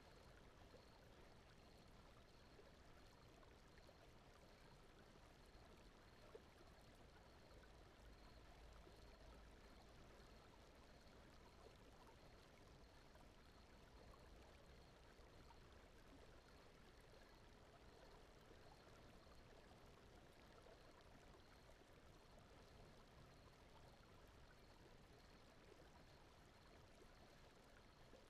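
Faint, steady, stream-like rushing noise from a sleep-aid brown-noise and water ambience bed, with a faint high tick repeating evenly throughout.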